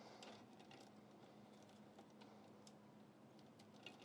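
Near silence with a few faint, scattered plastic clicks from hands working a zip tie around PC power cables.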